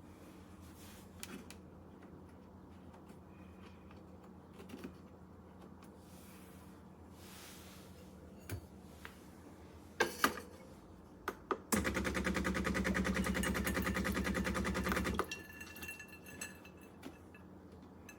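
Espresso machine running with a loud, rapid buzz for about three and a half seconds, which cuts off abruptly, after a few clicks and knocks.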